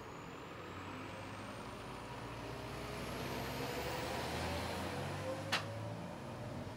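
Heavy truck driving past on the road, its engine rising steadily in pitch as it accelerates and loudest around four seconds in, over general traffic noise. A single sharp click about five and a half seconds in.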